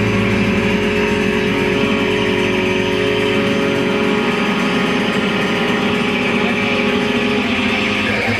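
Amplified electric guitars held in a loud, sustained drone of feedback and noise, several held tones over a rough haze with no clear beat.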